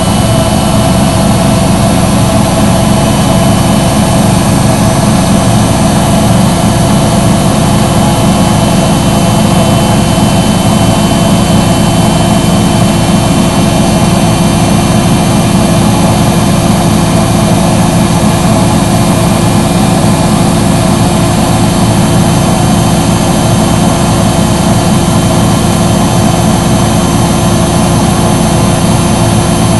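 Front-loading washing machine running on a cotton 40 °C cycle: a loud, steady motor hum with several held whining tones that do not change.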